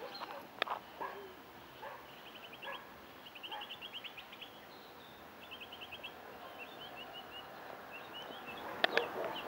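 Birds chirping in quick, repeated trills, with a few faint dog barks in the first seconds and a sharp click near the end.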